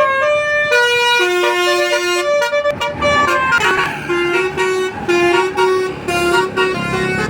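Telolet horn on a DAMRI bus, a set of musical air horns playing a rapid tune of short stepped notes, one pitch after another without a break.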